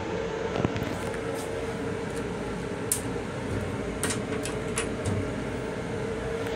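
Steady hum and rush of an LIRR M7 electric railcar's ventilation and running noise inside the car's small restroom, with a steady mid-pitched hum tone. A few sharp ticks sound at irregular moments.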